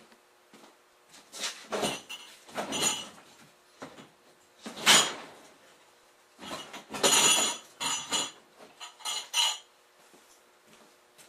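Metal objects clanking and rattling in irregular bursts as things are handled and moved around, with the loudest clank about five seconds in.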